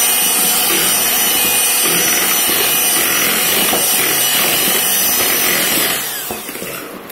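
Electric hand blender beating cake batter. The motor runs at a steady high whine, then winds down with a falling pitch about six seconds in.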